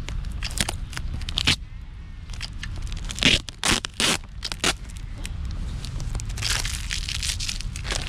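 Camera packaging being handled and unwrapped: crinkling, rustling and scraping, with a cluster of sharper crackles about three to five seconds in.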